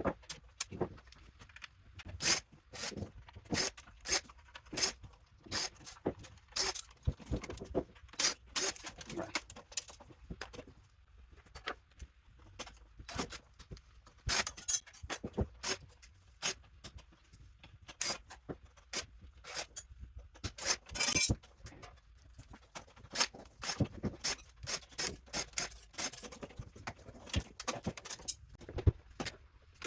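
Metal parts and hand tools clinking and clattering irregularly as an electronic power supply unit is dismantled for scrap, with a brief scrape about two-thirds of the way through.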